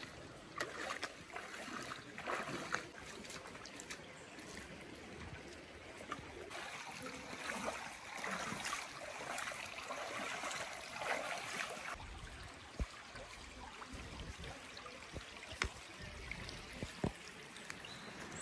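Footsteps wading and splashing through a shallow, stony river, over the sound of running water. About twelve seconds in the splashing eases and a few sharp knocks follow.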